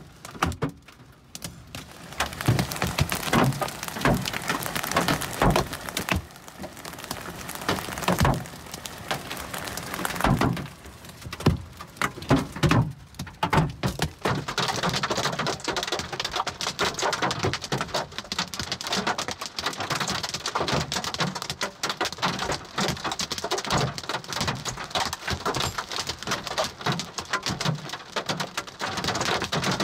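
Large hail, stones up to baseball size, striking the roof and windshield of a car, heard from inside the cabin. Scattered loud bangs at first, then from about halfway a denser, steady clatter of hail mixed with rain.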